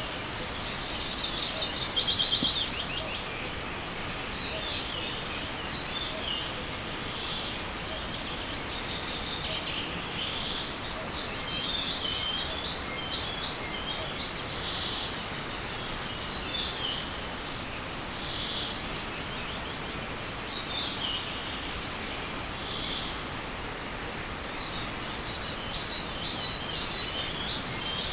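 Songbirds singing in spring woodland, phrase after phrase of high chirps and trills, the loudest a rapid trill about a second or two in. Under the song runs a steady, even background hiss.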